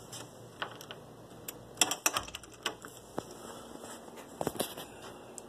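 Clicks and knocks of a metal lever door handle and its latch as a door is opened and let shut, the loudest cluster about two seconds in, then a few scattered knocks.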